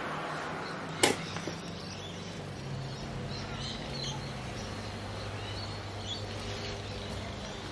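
Quiet handling as chicken wings are laid by hand on a Big Green Egg's cooking grate, with one sharp click about a second in. Faint bird chirps and a low steady hum run behind.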